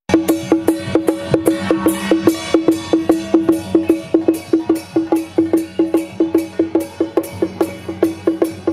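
Small hand-carried procession drum beaten in a quick, even rhythm of sharp, short strokes, about four a second.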